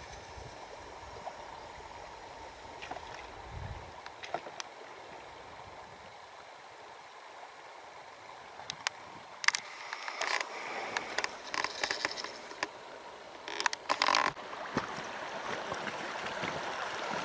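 River water running steadily around a boat drifting downstream, with a run of sharp knocks and splashes from the boat about nine to fourteen seconds in.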